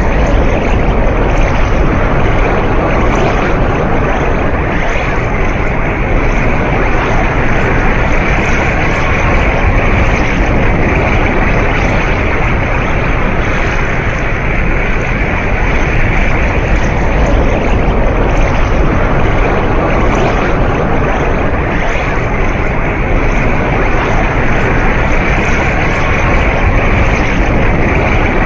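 Dragon Ball Super Spirit Bomb (Genkidama) sound effect: a loud, steady rushing noise of gathered energy, even and unbroken throughout.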